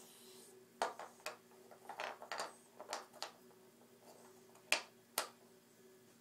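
Wooden alphabet puzzle pieces knocking and clicking against the puzzle board as a toddler handles them: a run of light taps, then two sharper clicks about half a second apart near the end.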